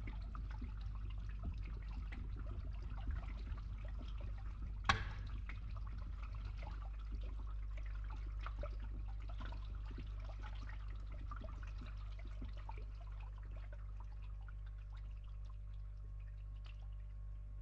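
Water draining through a pipe, trickling and dripping, over the steady low hum of a running pump. A single sharp drip or knock comes about five seconds in.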